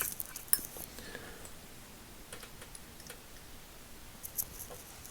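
Quiet, scattered metal clicks and taps as a 1/4-inch drive quick-release ratchet is opened by hand to expose its pawls and switch: a cluster of clicks in the first second, a few more around the middle and a couple near the end.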